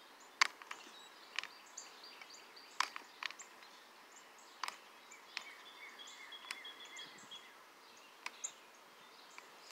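Scattered small clicks and taps as hands press rhinestone trim onto a lampshade and handle a hot glue gun, over faint outdoor ambience with faint bird chirps.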